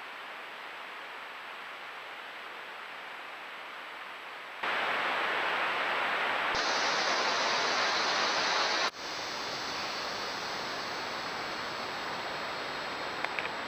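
Steady hiss of a trail camera's audio over rainforest background. It jumps abruptly louder about four and a half seconds in, where the clip changes, and shifts again near nine seconds. A steady high-pitched drone joins about halfway through.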